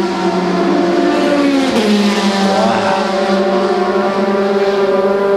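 Race car engine running at steady high revs, its pitch dropping a step about two seconds in.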